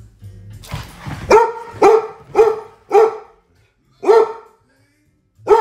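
A dog barking during play: a quick run of four loud barks about half a second apart, then after a short pause one more, and another near the end.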